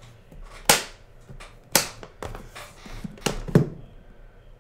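A handful of sharp clacks of hard objects being handled on a desk: four loud ones, the last two close together near the end, with fainter knocks between.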